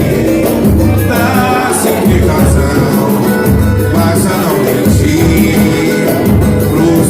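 Band music with a steady beat.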